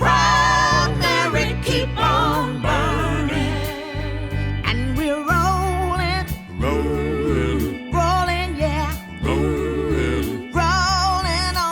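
Background music: a song with a singing voice over bass and a steady beat.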